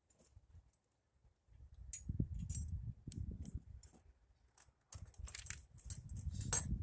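Stainless steel spokes clinking and rattling against each other and the wheel hub as they are fed through the hub flange, in two spells of light metallic clicks with handling noise.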